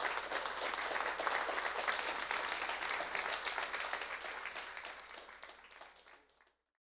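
Audience applauding: dense clapping from many hands, fading out near the end.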